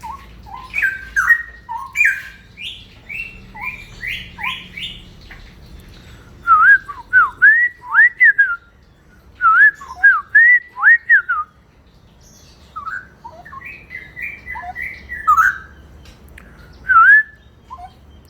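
Straw-headed bulbul (cucak rawa) in rapid, continuous 'ropel' song: loud looping whistled phrases with shorter chirps between, the densest run of phrases falling in the middle.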